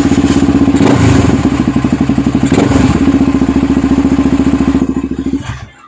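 Yamaha TT-R 250's single-cylinder four-stroke engine running with an even, rapid beat, then shutting off abruptly near the end.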